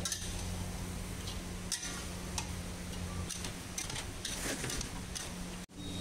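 Metal spatula scraping and clicking against a large iron kadai while stirring fried flour sticks coated in jaggery syrup: irregular sharp clicks and scrapes over a steady low hum.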